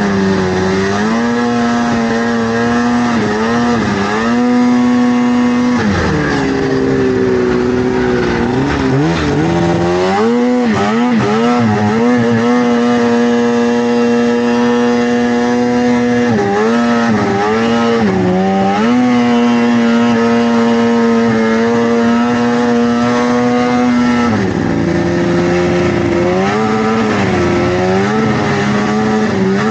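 Vintage snowmobile engine running under way. Its pitch holds steady for long stretches, then dips and climbs again several times as the throttle is eased off and opened. It drops to a lower, steadier pitch near the end.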